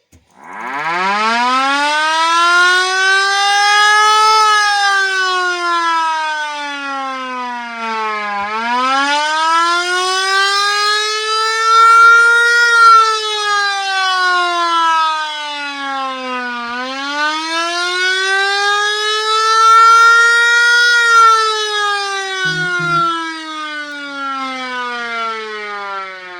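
Secomak VS2 24-volt electric motor siren sounding the Attack Red warning, cycled by an auto-wailer. It starts up about half a second in and wails, its pitch rising for about four seconds and falling for about four, three times over.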